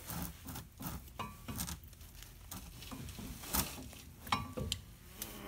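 Scattered light metal clinks and taps from hand tools and bolts being handled, irregular and short, with a couple of sharper clicks a little past the middle.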